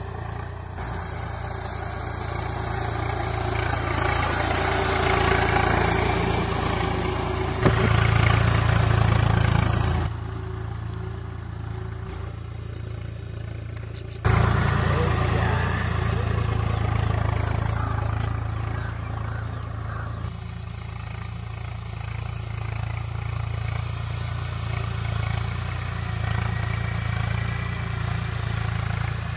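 Swaraj 744 FE tractor's three-cylinder diesel engine running steadily under load as it pulls a cultivator through the field. The sound drops abruptly about ten seconds in and jumps back up about four seconds later.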